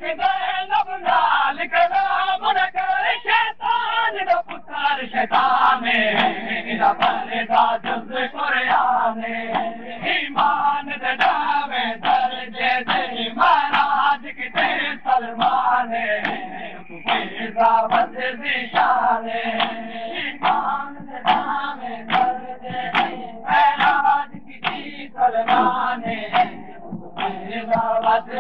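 A crowd of men chanting a noha together, with the sharp slaps of hands beating on chests (matam) keeping a regular beat under the voices.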